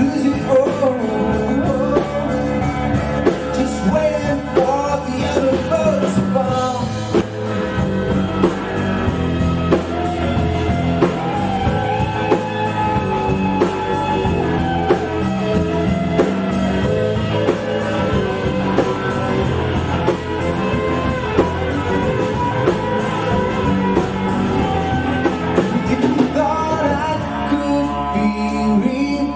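A small rock band playing a song live, with guitar, bass and drum kit and a lead voice singing over them at a steady beat.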